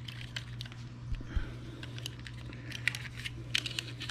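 Small plastic clicks and taps as the plastic housing of a projection-TV deflection yoke is handled and its little tabs are pried apart by hand, with a dull bump a little after a second in.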